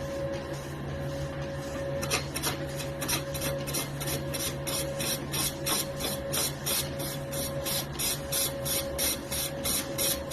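Lathe running with a steady hum. About two seconds in, a regular scraping tick joins it, about four a second, like something rubbing once per turn.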